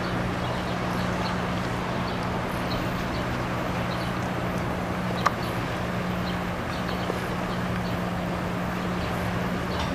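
Steady outdoor background noise with a low steady hum and faint scattered ticks, and one sharp click about five seconds in.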